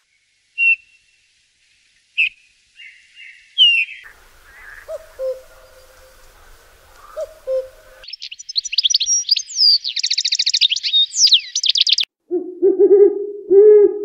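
Recorded wild bird calls played one species after another: a great spotted woodpecker, a common cuckoo, then an owl. First come short sharp calls, then paired lower notes, then a quick high chattering, and from about twelve seconds in, lower hoarse calls repeated several times.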